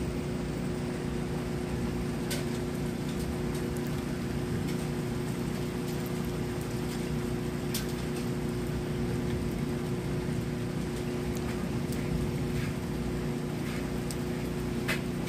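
Steady rainstorm noise with a constant low hum underneath and a few faint sharp ticks; no thunder clap stands out.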